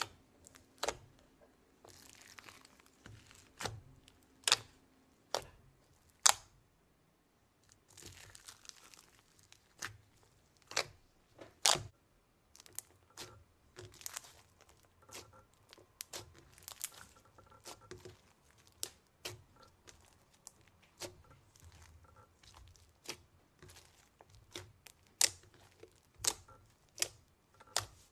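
Slime being handled, giving irregular sharp pops and clicks with a few short stretches of crinkly, crackling rustle.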